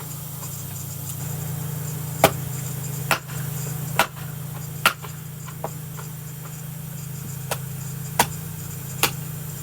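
Vintage True Temper Flint Edge Kelly Works Connecticut-pattern axe chopping into a knotty piece of kindling: about seven sharp strikes, roughly a second apart, with a gap of a couple of seconds midway. The knot resists, but the piece splits. A steady low hum runs underneath.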